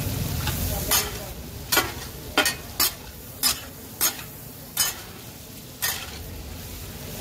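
Metal spatula scraping and striking a large flat tawa griddle as meat pieces are stirred and turned, about eight sharp scrapes at uneven intervals over a steady sizzle of frying.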